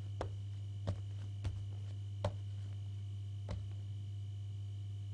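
A steady low electrical hum with a faint high steady tone over it, broken by a handful of sharp, short clicks at uneven spacing that stop about three and a half seconds in.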